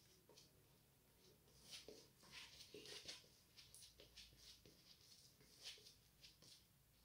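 Faint, scratchy scraping of a circa-1900 Antoine Touzet frameback straight razor cutting stubble through shaving lather. It comes in short, irregular strokes on a pass against the grain.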